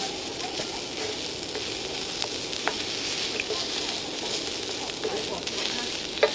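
Beef sizzling as it cooks over a campfire, a steady frying hiss with a few sharp clicks and pops.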